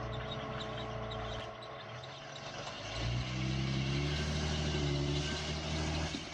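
Jeep Cherokee XJ's engine running low and steady while crawling over rock, then revving up about three seconds in and holding the higher revs for about three seconds before easing off.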